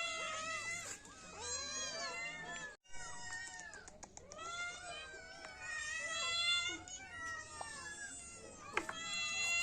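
Several kittens mewing at once: many overlapping, high-pitched meows that rise and fall, with a brief break about three seconds in.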